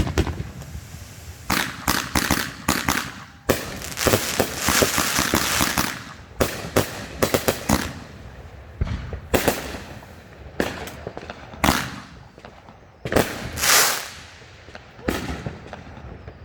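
Fireworks going off in quick runs of sharp bangs and pops, with a few longer crackling stretches, one about four seconds in and one near the end.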